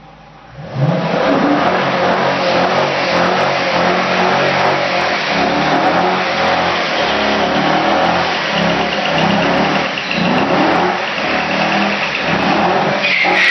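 Vehicle engine revving hard, its pitch rising and falling repeatedly, with a high whine near the end.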